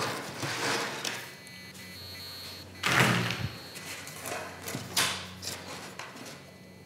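Handling noise on a worktable: a coil of steel wire rustling and tools being moved and set down, with a few knocks and scrapes, the loudest about three seconds in and a sharp one about five seconds in.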